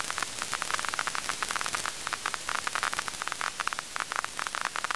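TV static noise: a steady hiss full of fine, dense crackles.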